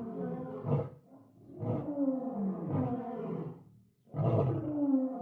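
Black-maned lion roaring: long, drawn-out calls that fall in pitch. One call ends about a second in, another runs from about one and a half to nearly four seconds, and a third begins near the end.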